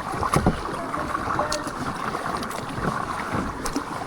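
Canoe paddling on a river: water splashing and sloshing around the paddles and hull, with a few short knocks and faint voices in the background.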